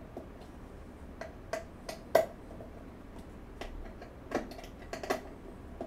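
Irregular light clicks and knocks from dresser parts being handled during assembly, about a dozen over a few seconds, the loudest a sharp knock about two seconds in.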